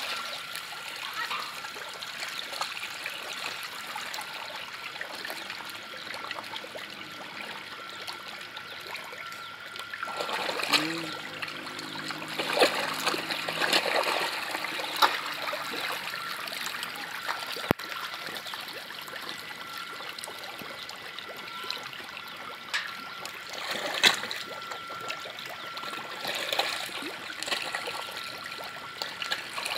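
Water splashing and trickling as a dense crowd of fish thrashes at the surface, with a few sharper, louder splashes here and there.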